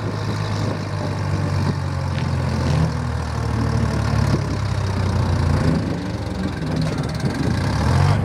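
Chamberlain Super 70's two-stroke GM 3-71 diesel engine running steadily under heavy load as the tractor drags the weighted pulling sled, getting a little louder near the end.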